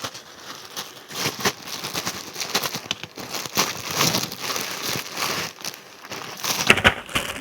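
Plastic packaging crinkling and rustling in irregular bursts as a parcel is handled and opened.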